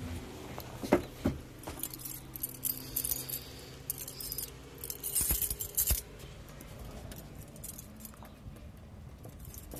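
A bunch of keys jangling in hand in several bursts over a few seconds, after two sharp knocks about a second in.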